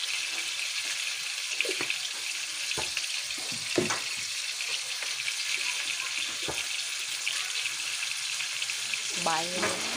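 Butter and olive oil sizzling steadily in a wok with chopped onion, garlic and bay leaves, with a few light clicks.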